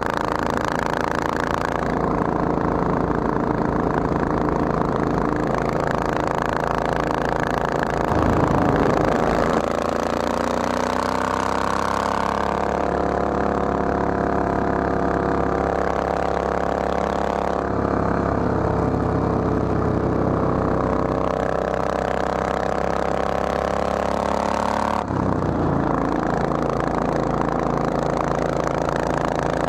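Triumph Thunderbird's parallel-twin engine running at road speed, heard from the bike with wind rushing past. About ten seconds in the engine note rises as the bike accelerates, and about 25 seconds in it changes suddenly.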